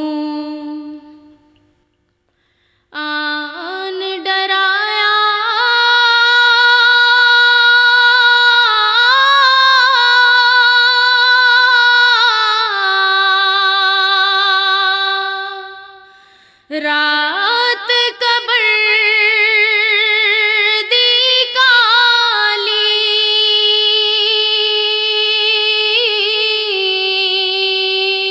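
A woman singing a naat solo, in long held notes with wavering ornaments. There are two long phrases: the first starts after a brief silence about three seconds in, and the second about seventeen seconds in.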